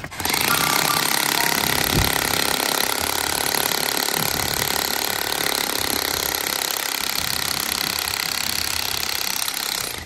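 Handheld corded electric demolition hammer chiselling into a concrete floor, running steadily as it breaks up the slab. It starts just after the beginning and stops near the end.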